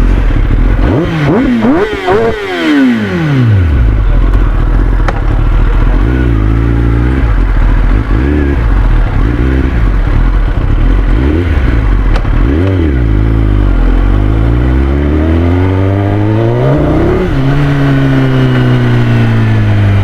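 Motorcycle engine idling and being revved. There are a few sharp throttle blips in the first few seconds and smaller blips through the middle. Then, about two-thirds of the way in, one long rev climbs for a few seconds and drops back toward idle.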